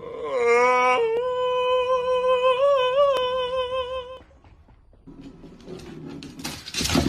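A long held note from a voice, steady in pitch for about four seconds and wavering slightly near its end. It is followed by quieter scuffling noise and a short, loud, noisy burst near the end.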